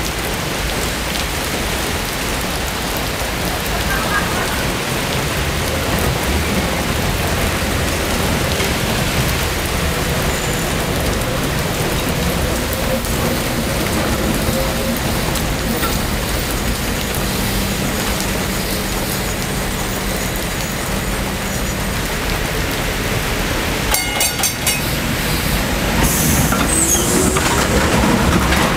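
Heavy rain hissing steadily on wet pavement as an articulated electric tram rolls past close by. Near the end the tram's motor hum rises in pitch, with a brief high squeal just before.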